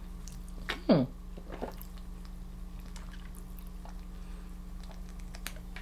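Faint sips and swallows of a drink from an aluminium can over a steady low hum, with a short falling 'mm'-like voice sound about a second in.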